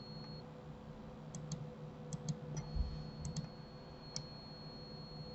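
About seven faint, short clicks from computer input while modelling in Blender, mostly in close pairs, between about one and four seconds in, over a faint steady electrical hum.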